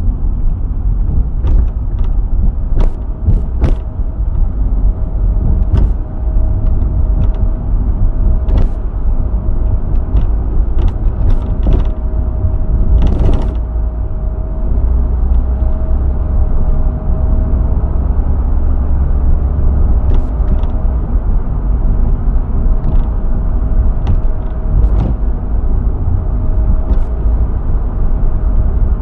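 2002 Ford Fiesta on the move: a steady low road and engine rumble with irregular sharp knocks and creaks from the rear of the car. The title puts these down to a failed silentblock (rubber bushing).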